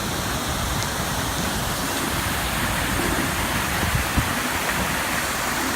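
Steady rushing noise of rain on a wet city street, with a single short knock a little past four seconds in.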